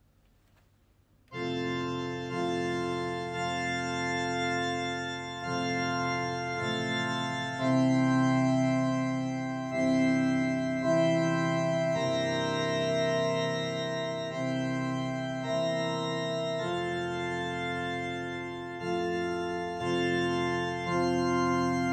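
Intro music of held chords that change every second or two, starting about a second in.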